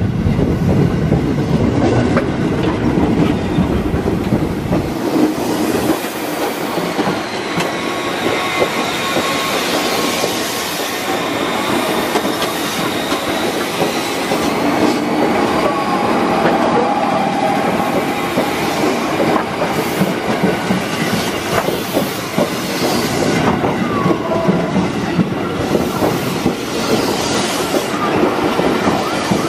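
Train wheels and bogies rolling slowly over a railway turnout, heard close up: a steady rumble with repeated clacks as the wheels cross the switch and rail joints. In the middle a thin wheel squeal rises and falls.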